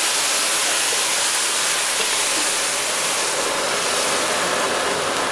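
Morning glory stir-frying in a very hot wok: a loud, steady sizzle and hiss.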